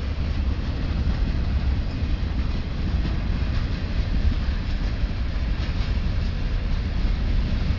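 Ferromex freight train rolling past: a steady low rumble of the train on the rails.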